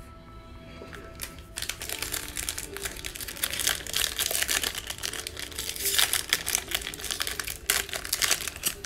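Foil wrapper of a Panini Mosaic football hobby pack crinkling and crackling as hands work it open, a dense rustle that starts about one and a half seconds in. Soft background music underneath.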